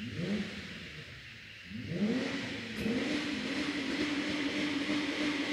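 Car engine revved in a burnout: a couple of short blips, then about two seconds in it climbs and holds steady at high revs, with a hiss building above the engine note.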